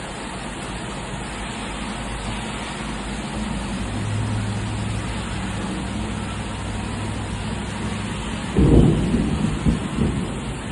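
Steady rain falling, then a sudden loud clap of thunder about eight and a half seconds in, followed by uneven low rumbles.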